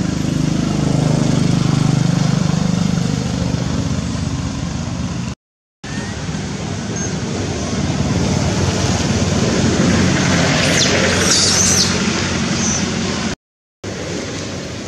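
Steady outdoor motor-traffic noise, a constant haze with an engine drone that is strongest in the first few seconds. The sound cuts out completely for a moment twice, and a few brief high chirps come about two-thirds of the way through.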